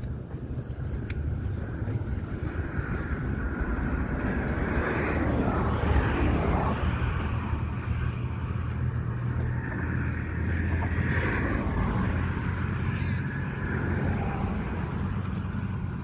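Motor vehicle driving: steady engine hum and road noise.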